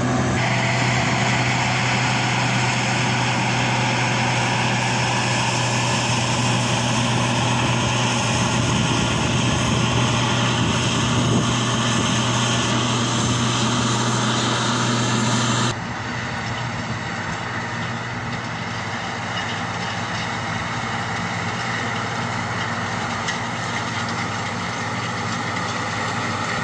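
Combine harvester and tractor engines running at a steady drone with a constant low hum, working a wheat field. About two-thirds of the way through the sound drops suddenly to a quieter, more distant machine drone.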